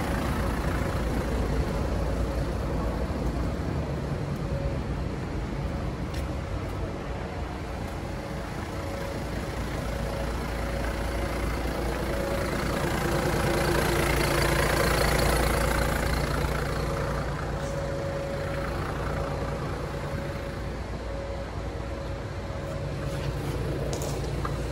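1990 Toyota Land Cruiser's turbo-diesel engine idling steadily, a low even rumble that grows louder about halfway through and then eases back.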